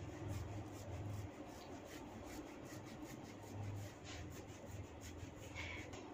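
Fingers rubbing and tugging at hair against the scalp, making a quick, irregular run of faint crackles and scratches over a low steady hum.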